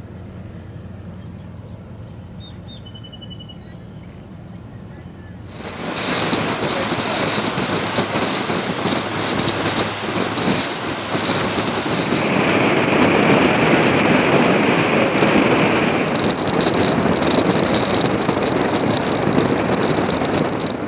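A low steady drone for the first few seconds. About six seconds in, loud rushing noise takes over: wind buffeting the microphone and the bow wave hissing along the hull of a moving ship, steady to the end.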